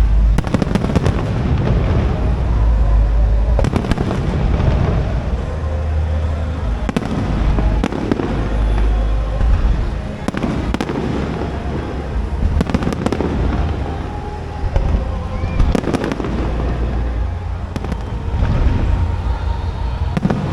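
Aerial fireworks display: shells bursting in sharp bangs every second or so at irregular intervals, over a continuous low booming rumble.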